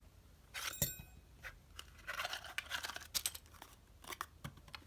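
A small cardboard accessory box being opened and its contents handled: a sharp click about a second in, then rustling and scraping of packaging, with several light knocks near the end.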